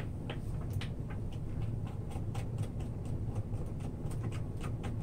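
A Torx T25 screwdriver turning a screw in the hood of a Sanitaire SC899 upright vacuum: a run of small, irregular clicks and ticks as the bit works in the screw head, over a steady low hum.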